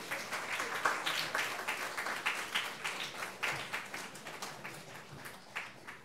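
Applause from a small audience, a patter of hand claps that thins out and fades near the end.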